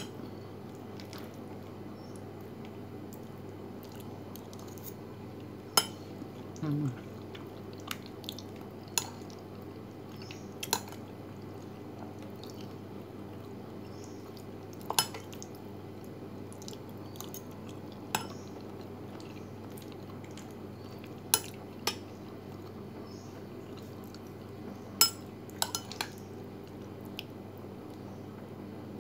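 Metal spoon clinking against a ceramic bowl of macaroni salad while eating: about a dozen sharp, irregular clinks over a steady low hum.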